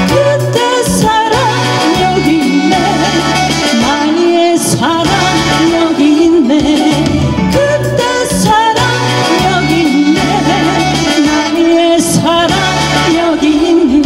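A woman singing a Korean song live into a handheld microphone over instrumental accompaniment with a steady, repeating bass line.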